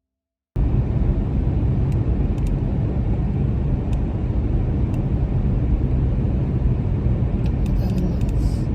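Steady rumble of a car driving at road speed, road and tyre noise with the engine underneath. It starts abruptly about half a second in, after a moment of silence.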